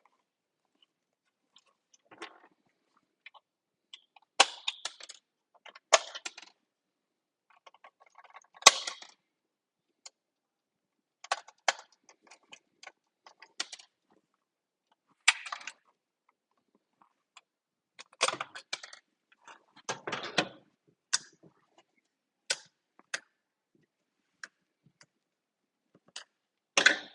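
Irregular clicks, knocks and short clatters of a disassembled Nerf Rival Hera blaster's plastic parts being handled and set down, with a few longer rattling bursts.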